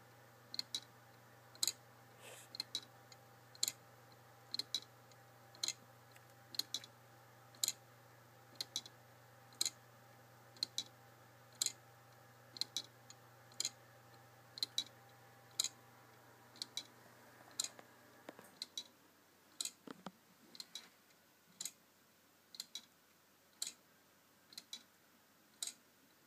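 Wooden clock with a grasshopper escapement ticking evenly, about once a second, each tick a quick double click.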